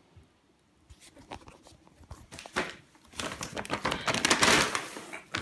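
Plastic shopping bags rustling and crinkling as a hand pulls open a reusable grocery tote and the plastic produce bags inside. It starts faint about a second in and becomes a loud, dense crinkling from about three seconds in.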